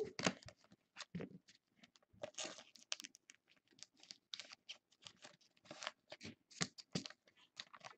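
Rigid clear plastic trading card holders being handled: faint, irregular clicks and taps with a few short scrapes as the cased cards knock together and slide against each other.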